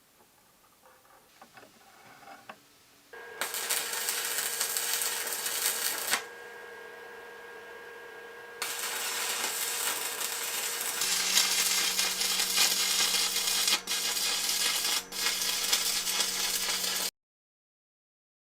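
Electric power tool running with a steady motor hum and a bright hiss, in two spells with a quieter stretch between; a lower hum joins in the second spell before the sound cuts off abruptly.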